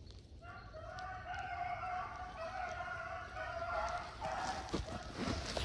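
A pack of rabbit hounds baying in chorus while running a rabbit: several drawn-out, overlapping howls start about half a second in and break off after about four seconds. A few soft knocks follow near the end.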